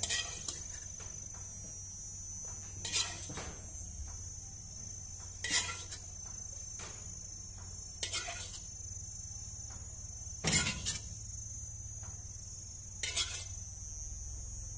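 A utensil scraping and clinking against a nonstick frying pan about every two and a half seconds, about six strokes, collecting the last of the sauce. Crickets chirr steadily throughout.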